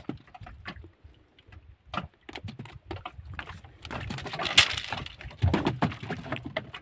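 Scattered knocks and rustles on a wooden outrigger boat as a hand line and float are worked over the side, with a louder rushing noise about four and a half seconds in.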